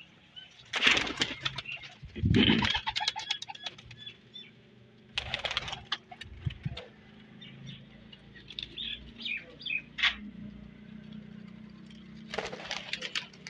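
Pigeons flapping their wings in several short, loud flurries, with quieter gaps in between.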